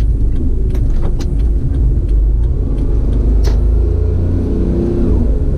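Car on the move: a steady low rumble of engine and road noise, with a few short clicks about a second in and a sharper one a little past the middle.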